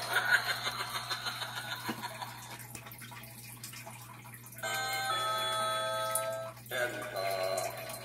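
Halloween mummy doorbell prop playing its recorded sound effects through its larger replacement speaker. A spooky voice trails off, then a held electronic chime tone sounds for about two seconds and cuts off abruptly, and the voice starts again near the end.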